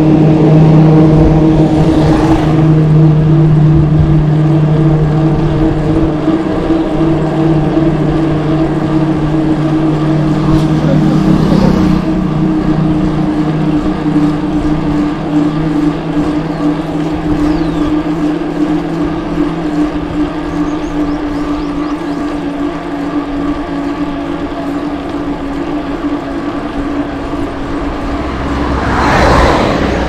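Engine running steadily with a low, even hum and a higher tone above it. A vehicle passes close near the end, rising and then falling away.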